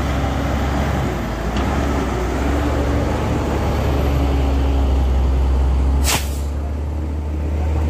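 Hino 500 bulk cement tanker truck's diesel engine pulling uphill close by with a steady deep drone. About six seconds in, a short sharp hiss of air from its air brakes.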